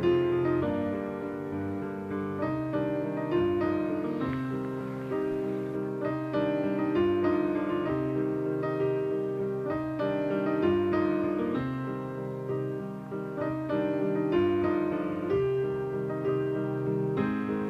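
Background piano music: a melody of single struck notes and chords, each fading after it is played.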